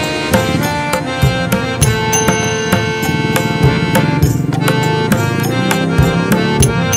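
Instrumental background music: held melodic notes over hand drums struck in a steady rhythm.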